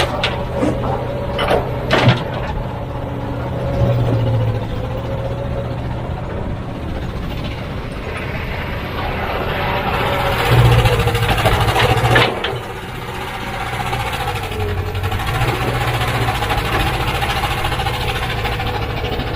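Diesel engine of heavy earthmoving equipment running steadily, with a few sharp clanks in the first two seconds and a louder rushing stretch about halfway through that cuts off suddenly.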